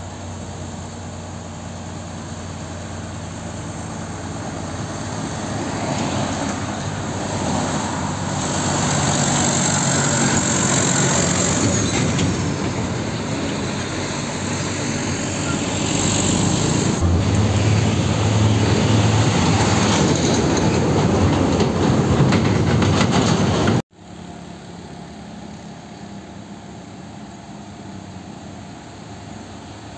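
Diesel engines of container semi-trailer trucks approaching and passing close by, with engine and tyre noise swelling twice to a loud peak. About three-quarters of the way through the sound cuts off abruptly and gives way to quieter engine sound of trucks further off.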